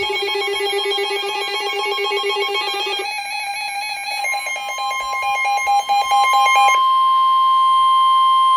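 Loud electronic emergency alert tones announcing a flash flood warning: a rapidly pulsing, warbling alarm that changes pattern about three seconds in, joined about four seconds in by a steady single-pitch tone, the weather radio warning alarm tone, which carries on alone from about seven seconds in.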